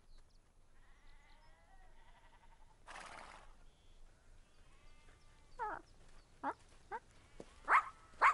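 Faint, quavering sheep bleats, a brief rush of noise about three seconds in, then a run of short, sharp dog yelps that fall in pitch and grow louder near the end.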